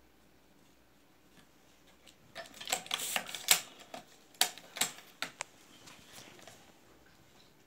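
Metal clicks and clacks from a semi-automatic cigarette tube filling machine as its lever is worked by hand. The clicks come as a quick cluster of sharp knocks starting about two seconds in and lasting about three seconds.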